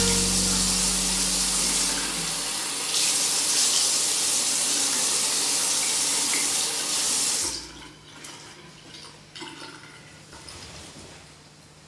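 Bathroom sink tap running, its stream splashing into the basin and over cupped hands as a face is washed; the tap is shut off about seven and a half seconds in, leaving only faint small rustles and clicks.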